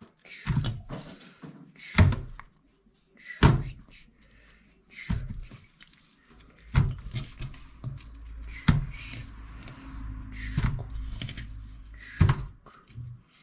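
A series of knocks and deep thuds, one about every one and a half to two seconds, with a low steady rumble underneath in the second half.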